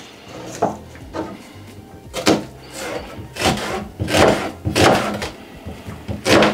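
Chef's knife slicing through a red onion and knocking on a plastic cutting board: a series of crisp cuts, sparse at first, then coming regularly, about one and a half a second, from about two seconds in.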